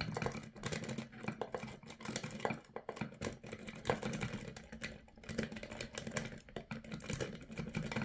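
Nail-clipper file jiggled in the wafer lock of a Rhino Lock Secure Pro key safe: rapid, irregular small metallic clicks and rattles as the lock is picked open.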